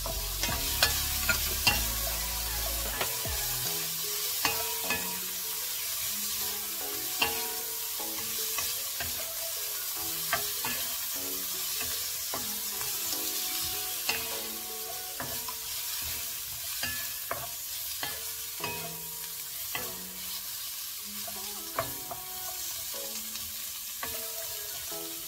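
Sliced mushrooms, carrot and bell pepper sizzling in a stainless steel wok while a wooden spatula stirs them, scraping and knocking against the pan in many sharp clicks.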